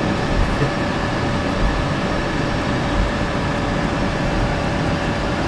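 Boeing 747-400 flight-deck noise at the start of the takeoff roll: a steady rumble of the engines and the wheels on the runway, with a faint steady whine.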